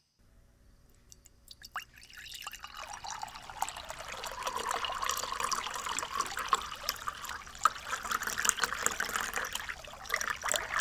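Coffee poured in a thin stream into a ceramic mug, a steady trickling splash that starts about two seconds in and grows louder.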